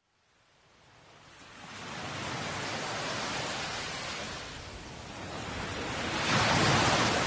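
Sea water washing and splashing around an action camera bobbing at the surface, a steady hiss that fades in over the first two seconds. It swells into a louder rush of water about six seconds in as the camera dips under.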